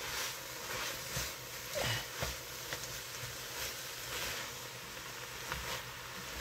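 Chicken and vegetables sizzling in a hot Dutch oven while a spatula stirs them, with scrapes and soft knocks of the spatula against the pot every second or so.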